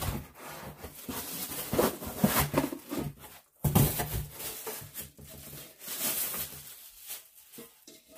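Irregular rustling, crinkling and light knocks of packaging being handled as pieces of a nonstick cookware set are unwrapped.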